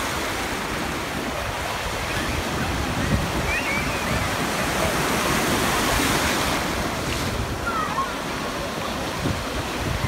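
Ocean surf: waves breaking and washing through the shallows, a steady rushing that swells slightly about halfway through.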